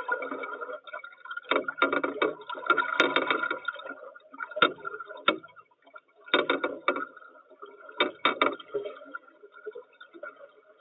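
Muffled, gurgling canal water as heard through an underwater microphone, with irregular knocks and clicks in clusters about two, three, six and eight seconds in.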